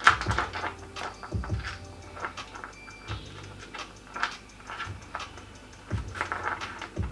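Pieces of rough opal clicking and knocking against each other and a hard surface as they are handled, in irregular taps, the loudest right at the start.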